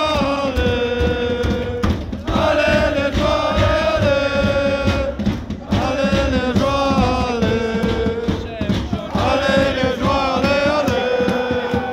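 Crowd of football supporters singing a chant together in the stands. The same sung line repeats about every three and a half seconds, each ending on a long held note.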